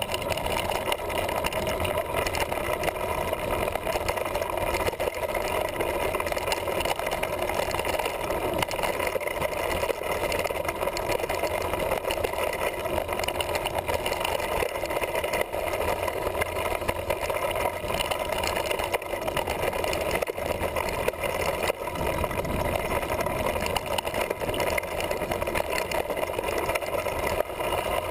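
Mountain bike rolling down a dirt singletrack: a steady rumble of tyres over the trail, mixed with wind noise on the microphone.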